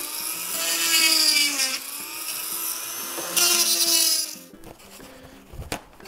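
Flex-shaft rotary tool whining as its bit drills sideways through the ribs of a hard plastic part, its pitch sliding up and down with the load. It stops about four and a half seconds in, followed by a couple of light knocks.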